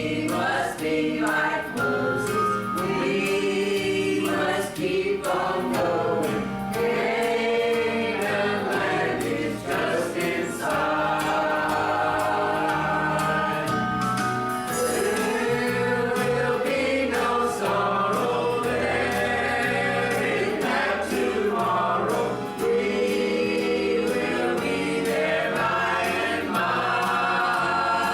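A group of voices singing a gospel hymn together over instrumental accompaniment.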